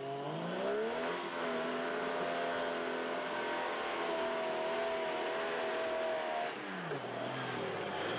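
Off-road 4x4 vehicle engine revving up over about a second, held at high revs for about five seconds, then dropping back.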